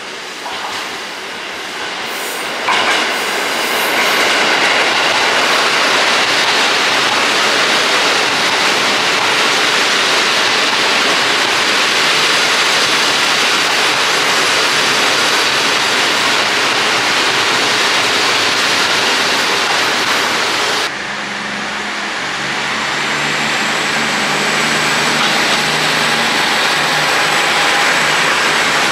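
JR Central KiHa 85 series diesel multiple unit running along a station platform: a steady rush of wheel and rail noise that swells sharply about three seconds in. Near the end the sound changes abruptly, and a low, steady hum from the train's Cummins diesel engines comes through under the rail noise.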